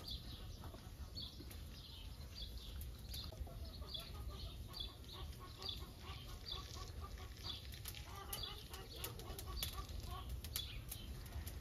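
Birds chirping, one short high call repeated about twice a second, with other lower calls joining midway, over a steady low rumble.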